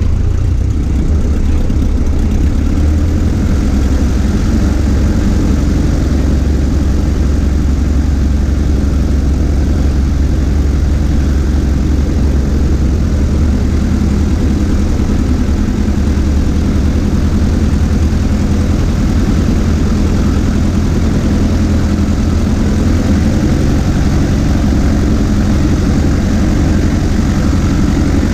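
Cessna 140A's small four-cylinder air-cooled engine and propeller running steadily at low power while the plane rolls out and taxis on grass.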